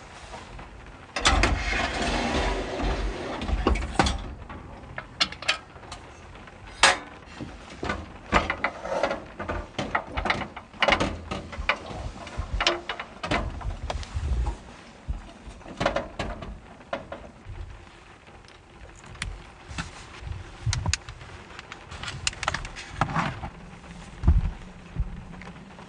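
Irregular clicks, clacks and knocks of small objects being handled, with a denser rustling stretch in the first few seconds.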